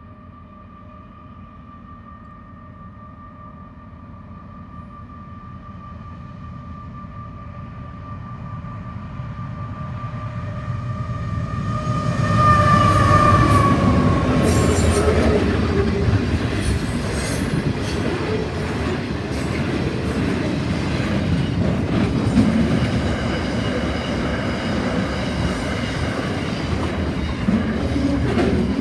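Aurizon intermodal freight train passing, led by three diesel locomotives. A steady high whine grows louder as the locomotives approach and drops in pitch as they pass about 12 seconds in. Then comes the loud rumble and clatter of the container and tank wagons rolling by.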